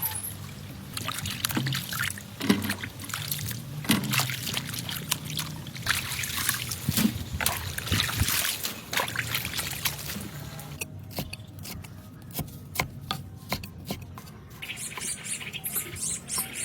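Water splashing, sloshing and trickling in irregular bursts, followed by a run of sharp clicks and knocks about two-thirds of the way through.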